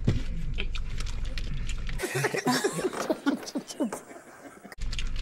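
Low car-cabin rumble with soft clicks and crinkles of people eating and tearing a sauce packet. About two seconds in, this cuts to an inserted clip full of short, falling vocal sounds that die away shortly before the car sound returns near the end.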